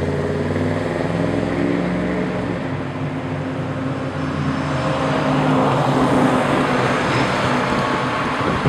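A motor vehicle running steadily, with a low engine hum under a broad rush of road noise.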